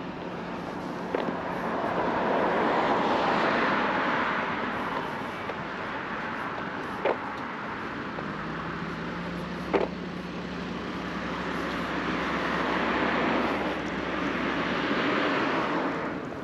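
Road traffic: cars passing on the street alongside, their tyre and engine noise swelling and fading twice, once in the first few seconds and again near the end. A steady low hum sounds through the middle, and two short sharp clicks stand out.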